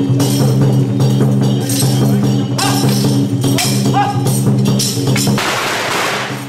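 Temple procession percussion: cymbals clashing roughly once a second over sustained low tones. Near the end the low tones stop and a ringing cymbal wash takes over.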